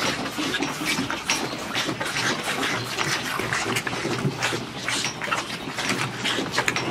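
Calves sucking milk from the teats of a multi-teat calf feeder, a busy mix of irregular slurping and clicking sounds.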